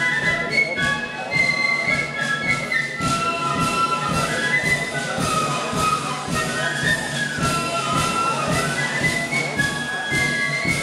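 Melody flute band playing: a body of flutes carries a stepping, rising-and-falling melody over regular drum beats.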